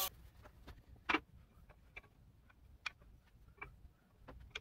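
Scattered light clicks and knocks of wooden blocks and a tool being handled on a workbench, the loudest about a second in.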